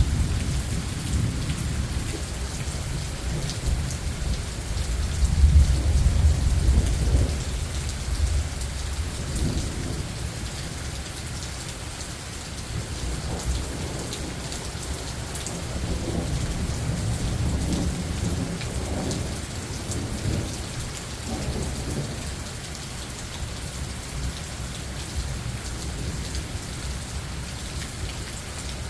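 Steady rain with rolling thunder during a thunderstorm. A low rumble swells and is loudest early on, a second, softer rumble rolls through the middle, and then the rain goes on with little thunder.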